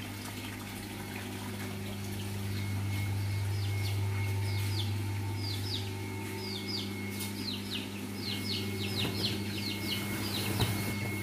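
Bantam chicks peeping in quick, high, falling chirps that start a few seconds in and come thickest toward the end, over a steady low hum.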